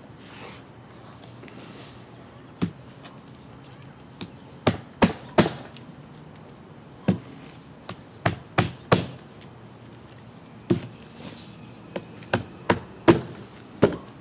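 Hammer driving roofing nails through asphalt shingles by hand: sharp strikes in quick groups of two to four, with short pauses between groups.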